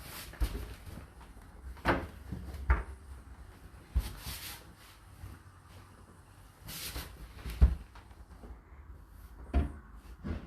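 Irregular handling knocks and clunks, about six in all, with brief rustling in between, like cupboard or appliance doors and items being moved.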